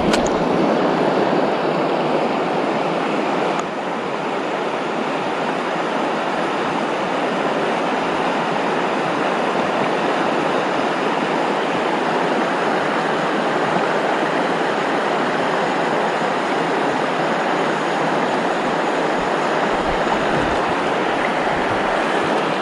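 Mountain river water rushing steadily over rocks, a constant even rush that dips slightly in level about four seconds in.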